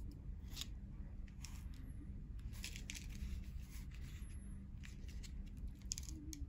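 Packaging being handled: irregular crinkling and rustling as a plastic-wrapped instant noodle cup is picked up and turned in the hand. A steady low hum runs underneath.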